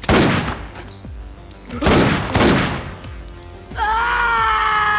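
Two loud, sudden crashing noises, one at the start and one about two seconds in, then from just before four seconds a woman's long scream whose pitch slowly falls.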